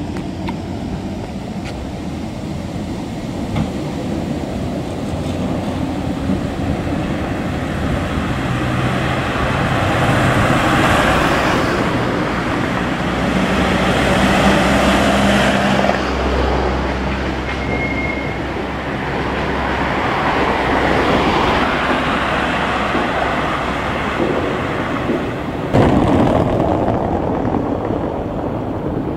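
Vintage trams and a small truck running along a street with tram tracks: a steady traffic rumble that swells as the vehicles draw near, with an abrupt change in the sound near the end.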